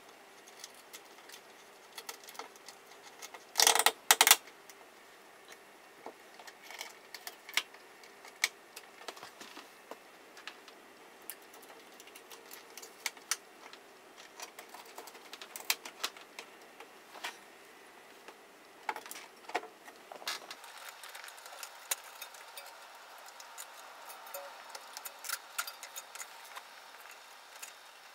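Scattered small clicks and plastic rattles of hands pressing the lever-type speaker terminals on a Technics SU-V50 amplifier and pushing speaker wire into them, with a brief louder clatter about four seconds in.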